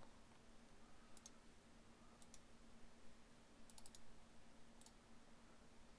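Faint computer mouse clicks over quiet room tone with a faint low hum: a double click about a second in, another about two seconds in, a quick run of clicks near four seconds and one more near five seconds.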